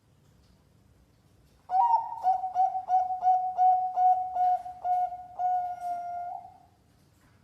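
Zebra dove (perkutut) singing one song phrase: about ten short coos in quick succession starting about two seconds in, ending in a longer held coo.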